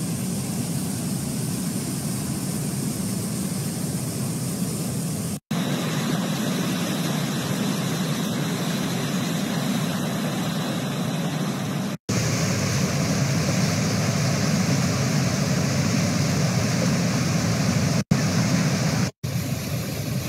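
Fast-flowing muddy floodwater rushing in a torrent, a steady loud rushing noise, cut by four brief drops to silence.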